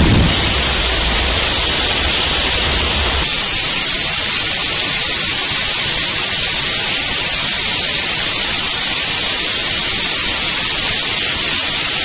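Gorenoise (harsh noise music) track: a loud, dense wall of static hiss, with a low rumble under it that drops out about three seconds in.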